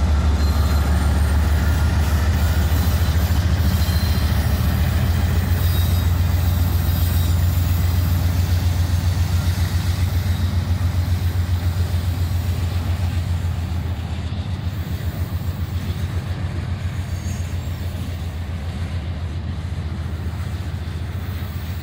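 Norfolk Southern diesel locomotives passing close by with a deep, pulsing engine rumble. The rumble drops off about 13 seconds in as the locomotives move away and covered hopper cars roll past.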